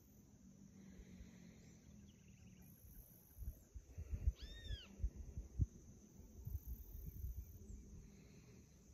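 A single short animal call about halfway through, rising then falling in pitch like a meow. Irregular low rumbling and thumps, louder than the call, run through the second half.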